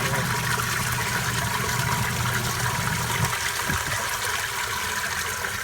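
Water running and splashing steadily into a basement sump pit after a near-flood. A low hum underneath stops about three seconds in.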